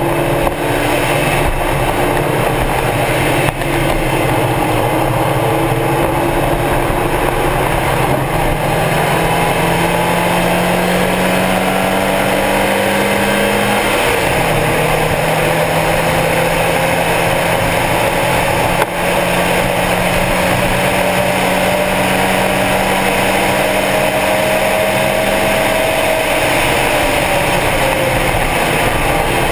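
Stock Mazda Miata's four-cylinder engine pulling hard on track, its pitch climbing slowly through a gear, dropping sharply at an upshift about halfway through, then climbing slowly again before falling away near the end, over steady wind and road noise.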